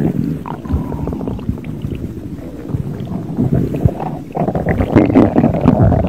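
A person's stomach growling, a continuous low gurgling rumble that swells louder about four seconds in.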